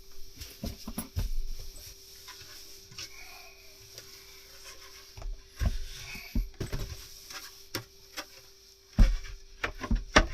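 Irregular knocks, clicks and light rattles of small objects being handled, a couple of sharper knocks near the end, over a faint steady hum.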